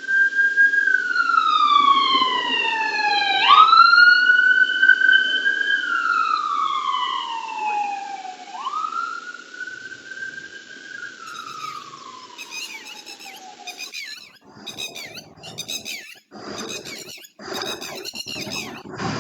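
Ambulance siren wailing: a tone that slides slowly down and then snaps back up, repeated over several cycles. After it fades, about fourteen seconds in, a bird sings in quick, repeated chirping phrases.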